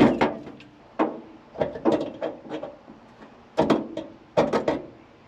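Several sharp knocks and clatters, spaced irregularly with short quiet gaps, from parts and tools being handled while working on a truck-bed shower tank and pump setup.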